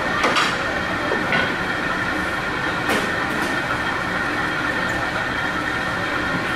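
Steady mechanical hum and hiss, with a few sharp clicks in the first three and a half seconds.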